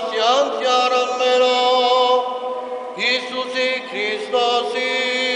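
Priest chanting the liturgy from a book in long, sustained sung notes that slide from pitch to pitch, with a brief pause a little after two seconds in.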